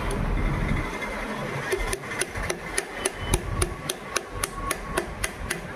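Quick, evenly spaced light metallic taps, about four a second, starting a couple of seconds in: a small hammer tapping a sewing machine's metal hook race (naal) to reshape it so it seats properly.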